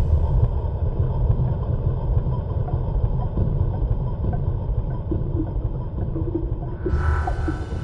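Opening of a Goa/psychedelic trance track: a dense, rumbling noise texture with no beat yet. About seven seconds in, a brighter synth layer with sustained tones and hiss enters.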